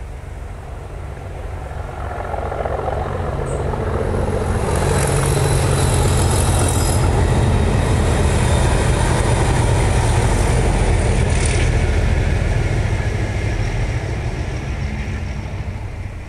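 A pair of Class 37 diesel locomotives with English Electric V12 engines hauling a test train past. The engine note and rumble build over the first few seconds, hold steady through the middle, then fade as the train moves away.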